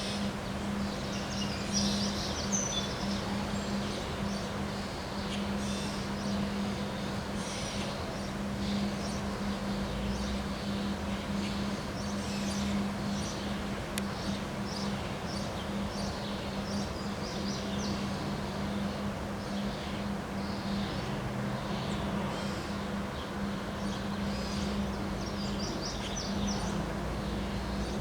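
Outdoor ambience: birds chirping on and off over a steady noisy background, with a low steady hum underneath.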